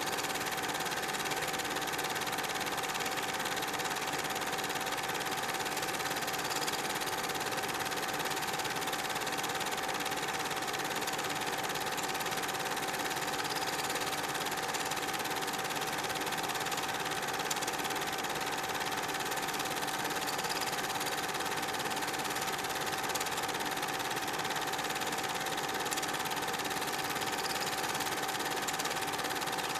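Super 8 film projector running: a steady mechanical whir and rattle from its motor and film transport, with a constant hum.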